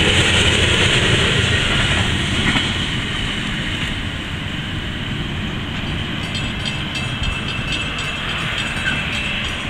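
Coal hopper cars rolling away on the rails: wheel-and-track noise that fades over the first few seconds as the end of the train moves off, then carries on as a steadier, quieter rumble.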